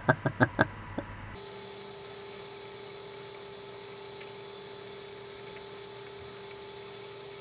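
A few quick light taps in the first second, then a faint, steady hum holding one constant pitch.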